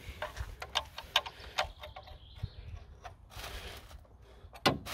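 Metal spanner clicking and tapping on the fuel-line union of an Opel 2.2 Direct high-pressure fuel pump as the fitting is worked tight: a string of small sharp clicks, with one louder knock near the end.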